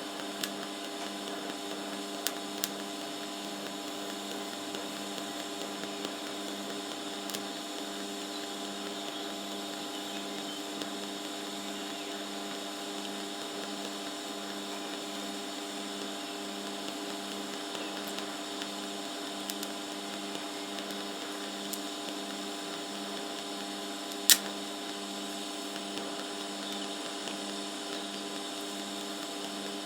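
TIG welder working on a rusty steel fuel tank: a steady electrical hum with a hiss over it as the bead is run to fill pinholes around a small hole. There are a few faint ticks, and one sharp click about 24 seconds in.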